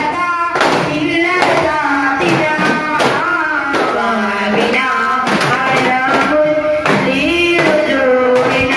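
Singing over daf frame drums struck in sharp, frequent beats: the music of a duff muttu performance.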